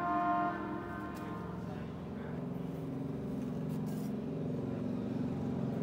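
Road traffic: a brief horn blast at the start, then the steady hum of a motor vehicle engine that grows louder toward the end.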